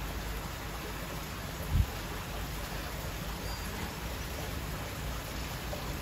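Steady outdoor background noise, an even hiss with a low rumble, with one brief low thump about two seconds in.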